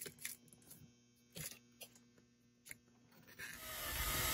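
Sparse light clicks and rustles of electrical cables being handled and pushed through a wiring run. Near the end a rush of noise with a low rumble swells up and takes over.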